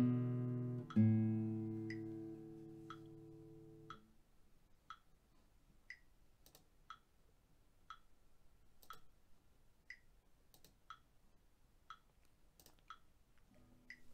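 Nylon-string classical guitar: the last notes of a scale, plucked about a second apart, ring out and are muted about four seconds in. After that a metronome ticks alone, once a second, with a higher accented click every fourth beat and a few stray clicks between.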